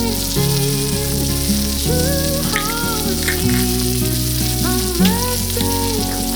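Background pop song playing, with sustained notes and a few gliding melodic lines, over a steady sizzling hiss.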